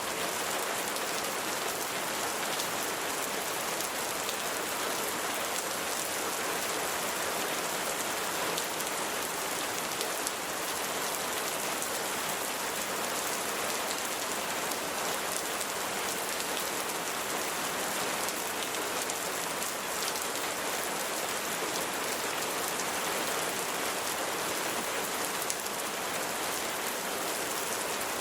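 Steady rain falling on a hard surface, an even hiss of many raindrops with fine scattered patters.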